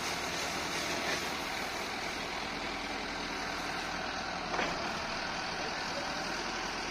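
Tractor engine running steadily, with one brief knock about four and a half seconds in.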